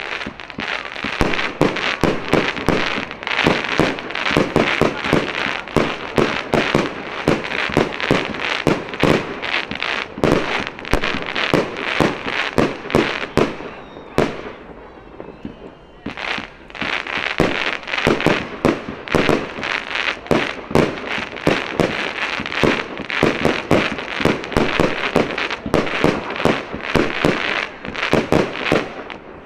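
Aerial firework shells bursting in a dense barrage of sharp bangs, several a second, heard from close range. The bangs thin out briefly about halfway through, then the barrage starts up again just as thick.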